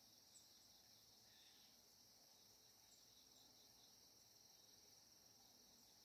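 Near silence, with a faint, steady, high insect chorus droning evenly throughout and one faint tick about half a second in.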